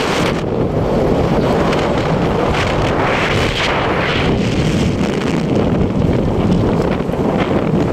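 Wind buffeting the phone's microphone on a speedboat running at speed, over the steady rush of the hull and engine through the water, with a brighter hiss of spray about three seconds in.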